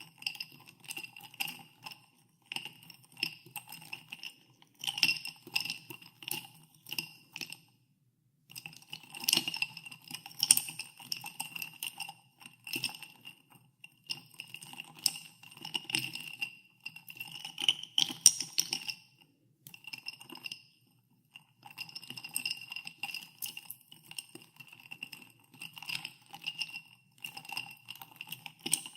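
Ice cubes being stirred in a glass of carbonated water, clinking against the glass in quick runs, with the glass ringing at each knock. The stirring stops briefly twice.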